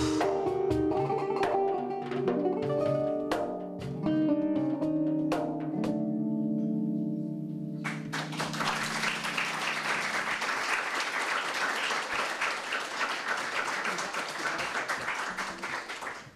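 Kanun and drums play the end of a piece: quick plucked kanun notes with sharp drum and cymbal hits, closing on a held tremolo chord. About eight seconds in, audience applause takes over and runs on for about eight seconds.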